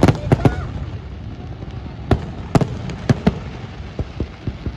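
Fireworks going off in an irregular string of sharp bangs: a quick cluster right at the start, then single bursts about half a second apart, and smaller pops near the end.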